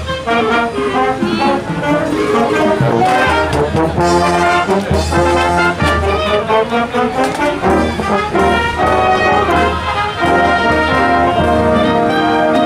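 A school marching band playing: trombones, trumpets, saxophones and sousaphones together, with heavy bass notes recurring under the melody.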